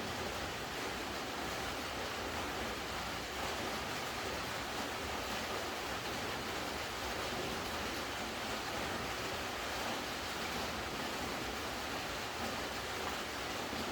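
Steady rainfall, a continuous even hiss with no pauses.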